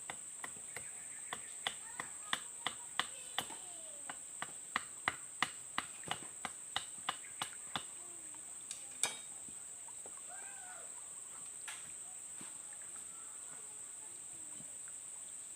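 Sharp tool strikes on wood, about three a second for roughly eight seconds, then one louder strike. A steady high-pitched insect drone, likely crickets, runs underneath.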